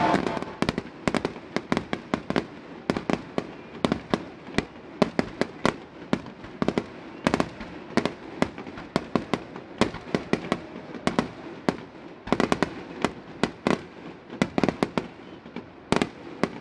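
Aerial firework shells bursting overhead: an uneven series of sharp bangs, several a second, bunching into quick clusters at times.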